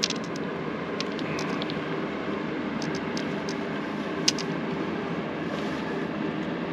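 A steady mechanical hum with a faint constant tone, and scattered light clicks, one sharper tick about four seconds in.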